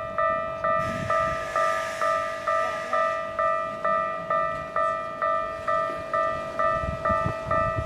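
Japanese railway level-crossing alarm ringing, a repeated electronic ding a little over twice a second, each stroke fading before the next. A train's running noise sounds underneath.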